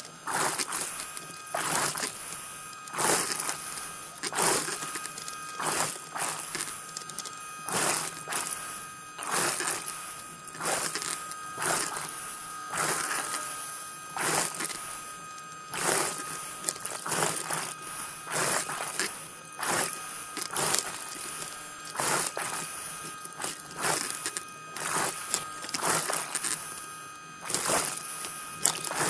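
Underwater, a diver propulsion scooter's motor whines steadily while scuba breaths rush through the regulator and out as bubbles, a loud hissing surge every second or two.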